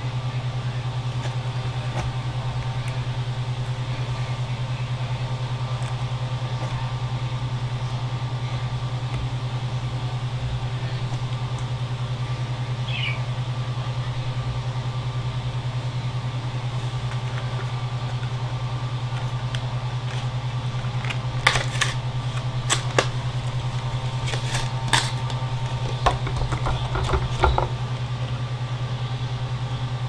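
Steady low hum throughout, with a run of sharp clicks and light clatter in the last third, as of hard computer parts being handled and fitted.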